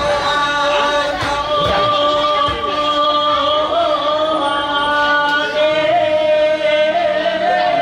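Singing voices holding long notes in a slow melody.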